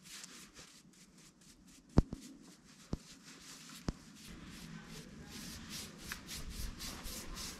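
Bristle brush swishing back and forth over a wooden tabletop as it spreads finish, a few quick strokes a second. Three sharp clicks cut in about two, three and four seconds in.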